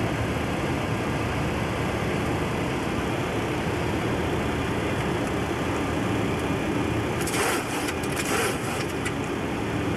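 Steady rushing noise of airflow and engines on the flight deck of a Boeing 727 in flight, with a brief cluster of clicks and rustles about three-quarters of the way through.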